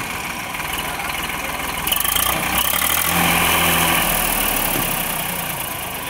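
ACE 550 NG tractor's diesel engine running, getting louder and working harder for a couple of seconds midway as the front loader's hydraulics tip a bucket of soil, then easing back.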